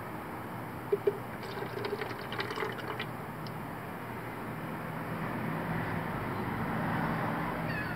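Oily condensate from a second PCV oil catch can being poured into a glass jar: two light clicks about a second in, then a thin trickle and drips for a couple of seconds, over a steady low hum.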